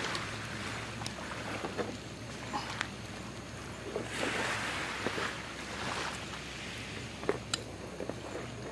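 Steady wind and small waves washing on the shore, with a few light clicks and taps from gear being handled, the sharpest about a second in and near the end.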